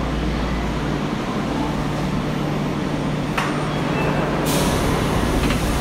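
Tokyo Metro 02 series subway train standing at the platform, its equipment giving a steady low hum. A sharp click about halfway through is followed a second later by a short hiss of air.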